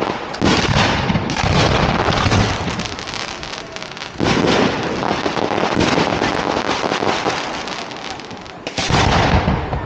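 Fireworks display: aerial shells bursting overhead with a dense, continuous crackling. Fresh loud bursts come about half a second in, about four seconds in and again near the end.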